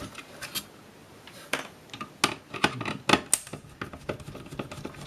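Irregular clicks and scrapes of hand tools and small parts against the plastic case and fittings of a ceramic fan heater, as a screw holding the fan's electronics is taken out.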